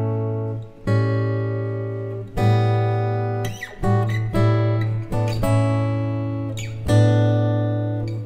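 Background music: slow acoustic guitar chords strummed about once every second and a half, each left to ring and fade before the next.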